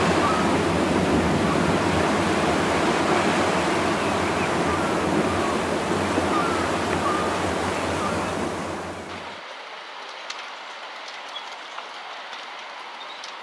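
Steady outdoor rush of sea surf and wind. About nine seconds in it cuts off abruptly to a quieter, thinner wind hiss with a few faint ticks.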